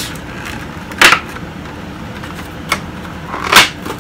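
Clear plastic figure packaging crackling as it is handled: two loud crinkles, one about a second in and one near the end, with a short click between them.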